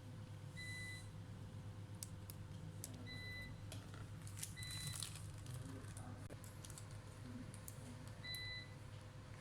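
Four short electronic beeps at one steady pitch, each about half a second long and irregularly spaced, with scattered small clicks between them over a low steady hum.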